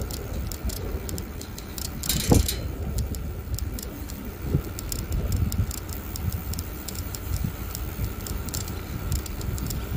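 Bicycle rolling along a paved road: a steady low rumble of wind and road noise with many light rattling clicks from the bike, and a louder clatter about two seconds in.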